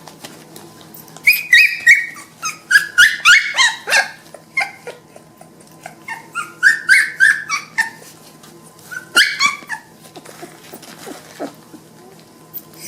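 Puppies whining and yelping: short high-pitched squeals, some falling in pitch, coming in several bursts with pauses between.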